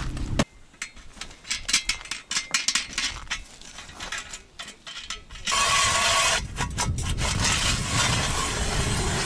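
Hand-cranked ice auger: a few scattered clicks and scrapes as it is set on the ice, then about five and a half seconds in, a steady grinding as its blades bite into the ice while it is cranked.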